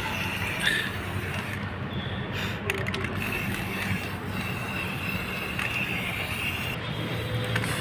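Aerosol spraying of black anti-rust paint onto a car's cross member: a steady hiss that breaks off briefly twice, over a low workshop hum.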